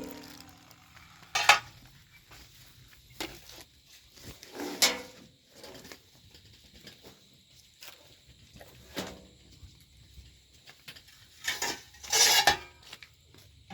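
Scattered metal clinks and knocks, a few seconds apart, with a louder cluster near the end, from metal parts and tools being handled while the combine harvester's bucket is repaired.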